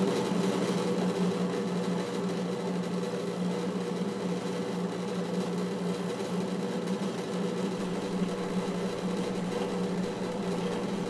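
Drill press running steadily, its bit boring a hole through a mild steel pommel: an even motor hum with a light cutting noise.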